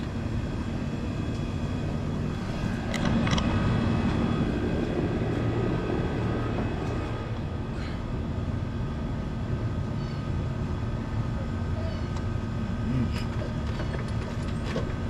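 Steady low mechanical hum, with a few sharp clicks about three seconds in and again near the end.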